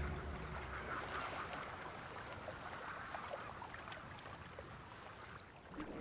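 Faint calls of seabirds on the water, many short scattered calls over a low wash of sea noise, slowly fading away.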